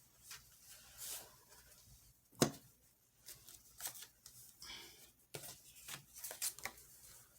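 Tarot cards being shuffled and handled: irregular soft papery rustles and slides, with one sharp click about two and a half seconds in.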